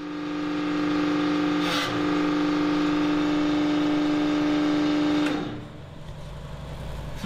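Hydraulic press running with a steady mechanical hum as it holds over 20 tons on a cylinder sleeve pressed into an aluminium Subaru EJ22 engine case. A brief hiss comes about two seconds in, and the hum drops off a little after five seconds, leaving a quieter hum.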